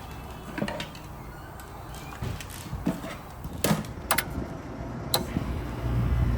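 Several sharp clicks and knocks from tools and parts being handled on an air conditioning unit during wiring work, then a low steady hum of the unit starting to run near the end.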